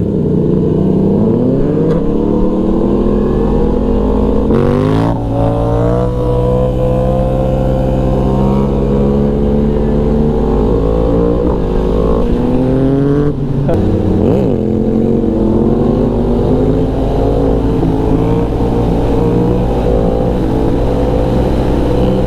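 Yamaha MT-series motorcycle engine accelerating hard through the gears, its pitch climbing and then dropping sharply at two quickshifter upshifts, about five seconds in and again about thirteen seconds in, before pulling on steadily.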